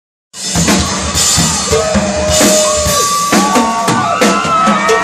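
Drum kit played live in a drum check: fast kick drum, tom and snare hits under crashing cymbals, starting about a third of a second in.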